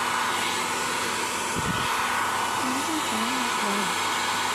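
Panasonic EH-ND11 compact hair dryer running steadily: a continuous rush of air with a thin, steady whine. There is a brief low thump about a second and a half in.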